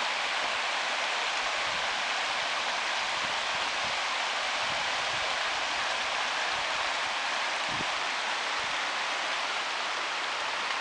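A small rocky forest creek rushing over riffles and boulders: a steady, even hiss of running water.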